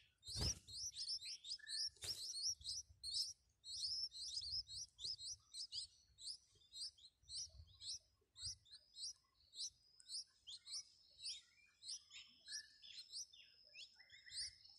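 Nestling songbirds begging for food: a fast, continuous run of short high chirps, several a second. Two dull knocks come in the first two seconds, and a thin steady high whistle joins the chirping about ten seconds in.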